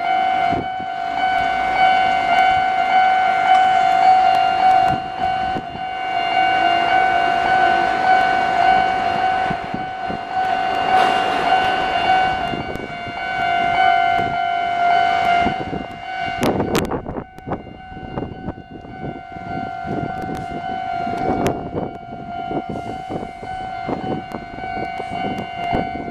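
Japanese level crossing's electronic warning bells ringing steadily with a repeating ding, two crossing alarms sounding out of step with each other. A train passes over the crossing with them for the first two thirds, its rumble dying away while the bells keep ringing.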